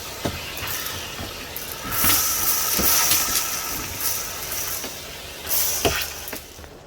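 Shop vacuum running with a steady whine and rushing air, surging louder twice as the nozzle sucks mouse-nest debris, with a few knocks of the nozzle against the cab interior; it cuts off at the end.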